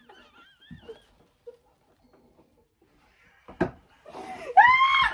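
A woman's wheezing, high-pitched laughter: a faint squeaky wavering sound at first, a near-silent stretch, then a loud rising-and-falling laughing cry near the end.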